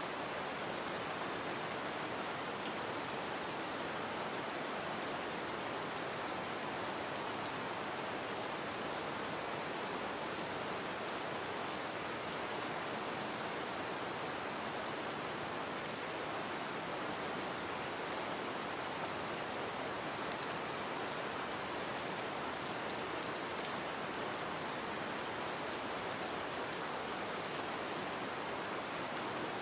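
Gentle rain falling steadily: an even hiss dotted with many fine drop ticks.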